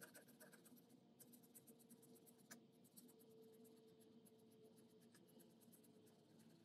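Faint, rapid scratching of a felt-tipped pen tip rubbed along the plastic edge of a pickup truck bed, with one sharper tick about two and a half seconds in. A faint steady hum sits underneath.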